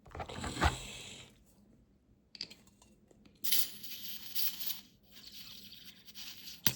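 Dupont table lighter being gas-tested: several bursts of hissing butane gas, with a sharp metallic click near the end. The gas is escaping at the gas nozzle, which is leaking.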